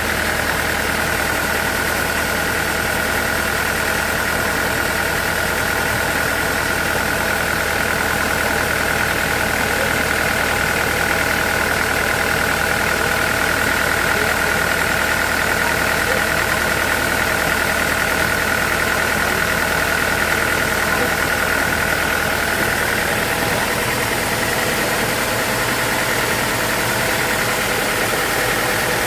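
Sawmill machinery running steadily, with a steady high whine over it that fades out about 23 seconds in while the machine keeps running.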